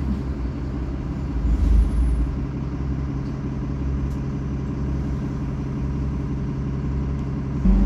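Diesel engine of an ADL Enviro 300 single-deck bus running steadily with a low hum, heard from inside the passenger saloon. Near the end the engine note suddenly rises and gets louder.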